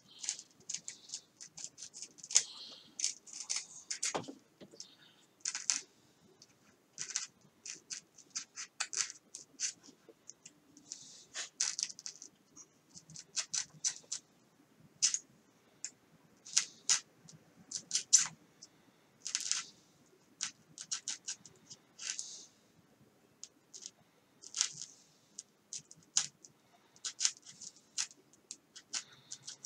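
Craft knife blade cutting into a laminated foam wing: a long run of short, sharp, scratchy crackles at an uneven pace as the blade is drawn along an outline.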